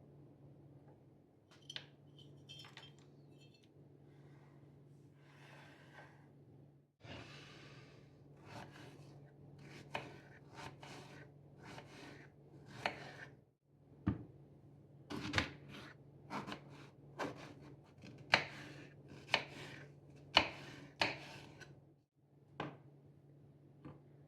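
Kitchen handling sounds from packing a lunch box: utensils and containers clicking and tapping, sparse at first and then a quicker run of sharp taps in the second half, over a faint steady low hum.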